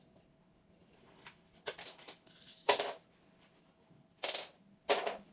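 A few short rustling and scraping handling noises close to the microphone, four brief bursts with the second the loudest.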